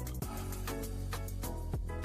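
Background music: an upbeat track with a steady beat, a deep bass line with sliding bass notes, and guitar.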